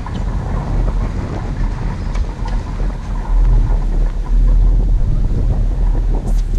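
Wind buffeting the microphone: a loud, steady, low rumble. A few faint sharp clicks come about two seconds in and again near the end.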